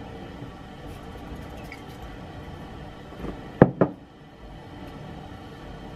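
Two sharp knocks on a hard surface in quick succession about three and a half seconds in, a fainter tap just before them, over low steady room noise.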